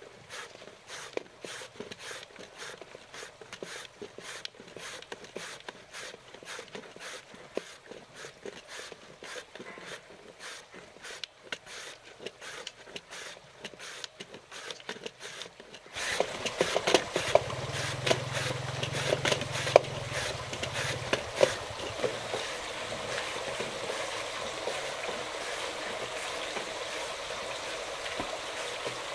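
Scattered light clicks and scrapes of handling, then, about halfway through, oil begins a steady sizzle as sweet potato shrimp cakes fry, with the clicks of utensils over it.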